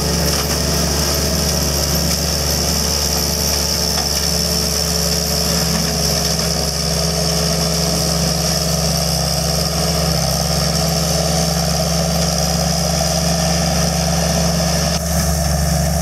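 Cat 299C compact track loader's diesel engine running steadily under load as its Brown Bronto forestry mower head cuts brush. A steady high whine sits over the low engine drone.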